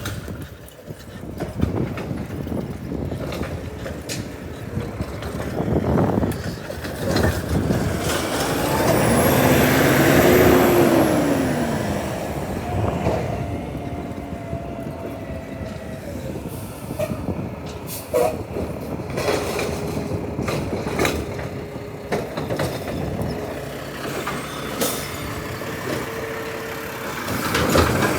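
Garbage truck at work: engine running with a whine that rises and falls in pitch as it lifts a trash can, and several sharp knocks of the cans.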